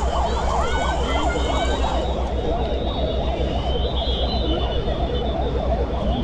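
Several emergency-vehicle sirens wailing at once, their rising and falling tones overlapping, over a low steady rumble.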